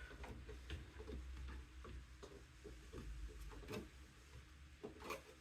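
Faint, irregular light clicks and taps of a graphics card and its power cable being handled and fitted into a small PC case, with a couple of sharper clicks later on.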